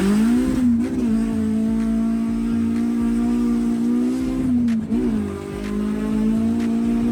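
Honda K20 four-cylinder engine pulling hard at high revs during a full-throttle 0 to 100 km/h run. The pitch dips briefly and picks back up about a second in and again near five seconds in, as the car shifts gear.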